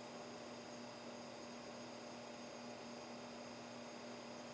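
Faint steady electrical hum over a low hiss: room tone, with no other sound.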